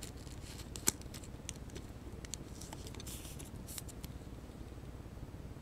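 A trading card being handled and slid into a clear plastic sleeve: scattered light clicks and taps, a sharper tap about a second in, and a brief sliding rustle of plastic about three seconds in.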